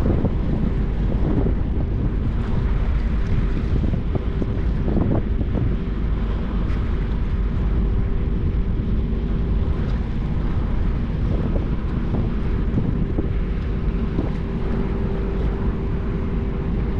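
Wind rumbling on the microphone over the steady hum of a passing bulk carrier's engines.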